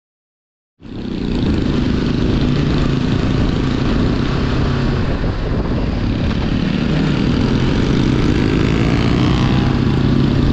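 BMW G 310 GS single-cylinder motorcycle engine running steadily while riding, under heavy wind and road noise on the mic. The sound cuts in abruptly just under a second in, after silence.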